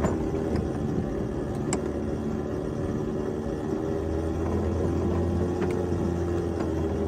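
A 7½-inch gauge ride-on miniature locomotive and flatcar running along the track: a steady running hum and rumble, with a few sharp clicks.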